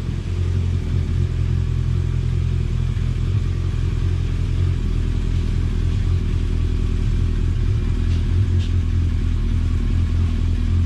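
Heavy motorcycle's engine running at a low, steady idle as the bike creeps slowly forward and its front wheel rolls into a wheel chock.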